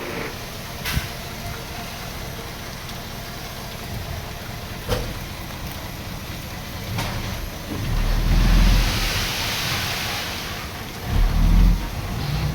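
Heavy diesel earthmoving machinery working: a steady low engine rumble broken by a few sharp clanks. About eight seconds in the engine surges, joined by a rushing noise for a couple of seconds, and it surges again briefly near the end.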